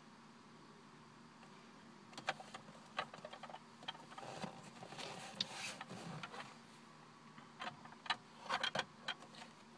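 Irregular soft clicks and rustling, like small objects being handled and people shifting about, starting about two seconds in, over a faint steady hum.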